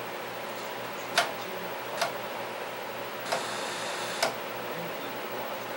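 Rotary VHF channel selector knob of a 1986 Sears (Sanyo-built) TV clicking from detent to detent, four clicks about a second apart, over a steady hiss from the set that brightens briefly after the third click.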